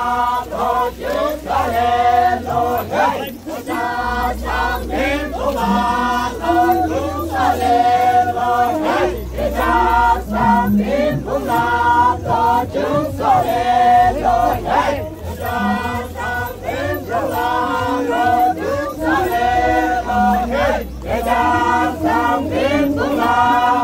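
Group of Naga dancers, men and women, chanting a traditional song in unison, in short repeated phrases.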